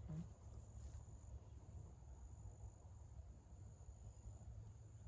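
Near silence with faint, steady, high-pitched insect chirring from the surrounding swamp.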